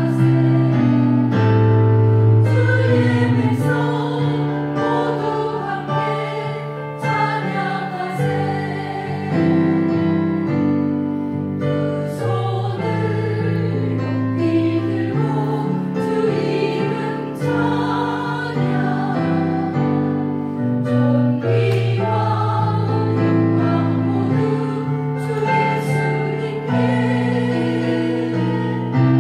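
A small women's choir of about seven voices singing a Korean hymn in parts, with keyboard accompaniment holding low chords beneath them.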